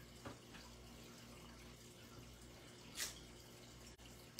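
Near silence: faint room hum, with one brief soft rustle about three seconds in as the clear stamp and paper are handled.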